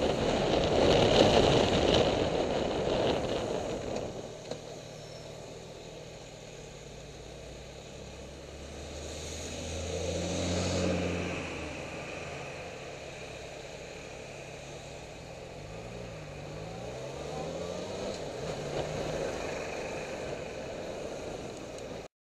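Motorcycle riding through slow city traffic: wind and road noise while moving in the first few seconds, then a low engine running slowly among queued cars, with the engine note swelling about halfway through and a few engine notes rising and falling later. The sound cuts off abruptly near the end.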